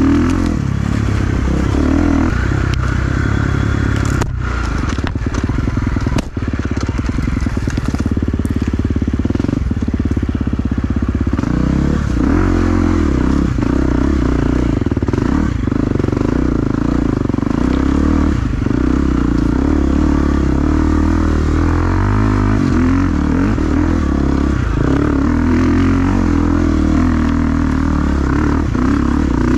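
Enduro motorcycle engine running under way, with its note shifting about twelve seconds in. A few sharp knocks come between about four and eight seconds in.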